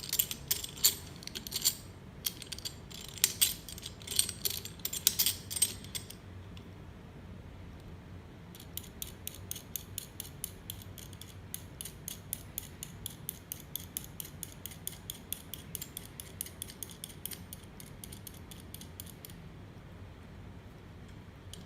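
Metal door-closer arm hardware being worked by hand. First come irregular clicks and clinks, then after a short pause a long, even run of rapid ratcheting clicks lasting about ten seconds, as the arm link is adjusted and fastened.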